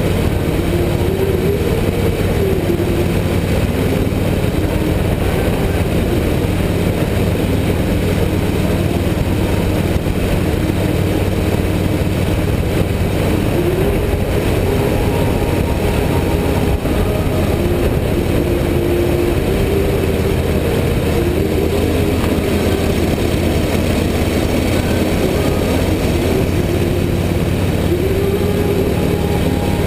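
Harley-Davidson V-twin motorcycle engine running steadily at cruising speed, heard close to the bike, with continuous road and wind noise.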